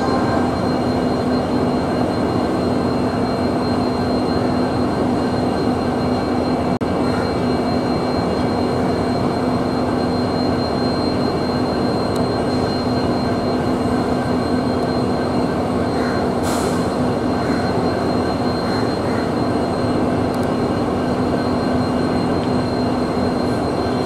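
Diesel generator sets of an Indian Railways end-on-generation (EOG) power car running at a steady drone, with a constant low hum and a faint high whine above it.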